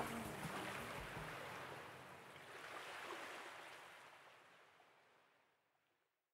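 A surf-like wash of noise at the end of the track, fading steadily to silence about five seconds in.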